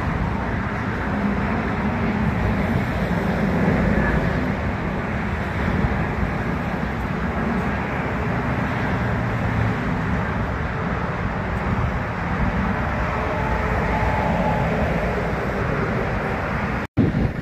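Steady low rumble of a twin-engine jet airliner's engines as it climbs away after takeoff. The sound breaks off abruptly near the end.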